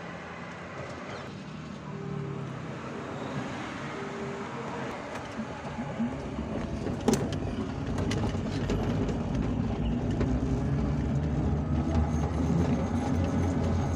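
Enclosed electric mobility scooter driving along a street: a steady low motor hum and road rumble with rattles from its body, growing louder through the second half, with one sharp click about seven seconds in.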